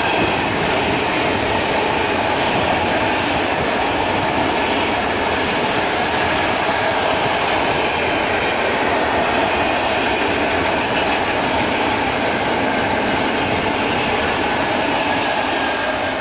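Freight train of open-top gondola wagons passing close by: a loud, steady rumble and clatter of steel wheels on the rails, starting to fade right at the end as the last wagon goes by.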